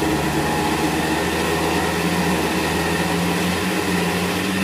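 Steady mechanical hum of a Kawasaki Mule 3010 utility vehicle running while its winch hauls a log up onto the pile by cable. The hum shifts slightly higher about two seconds in.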